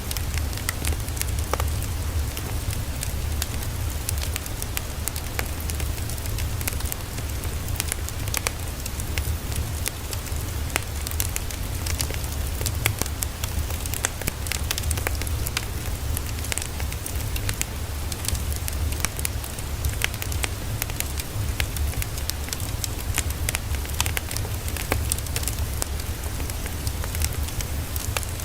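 Steady low rumble under dense, irregular crackling clicks that continue throughout.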